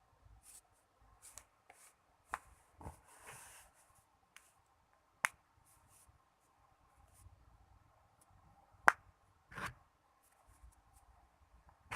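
Joints cracking: several sharp, isolated pops with soft scuffs between them, three of them clear and the loudest about three-quarters of the way through.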